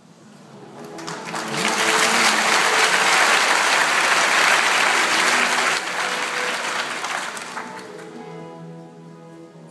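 Concert audience applauding, swelling about a second in and dying away after about seven seconds, while the baroque orchestra with harpsichord keeps playing softly underneath and comes through clearly again near the end.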